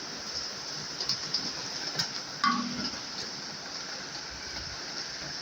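Heavy rain falling steadily, a constant hiss with a few faint ticks of drops.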